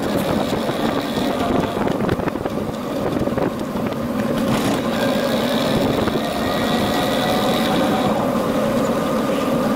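Steady rushing and rumbling of a bicycle ride picked up at the handlebars: tyre noise on pavement and wind on the microphone, with light scattered rattling.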